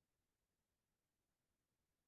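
Near silence: dead air on a video call.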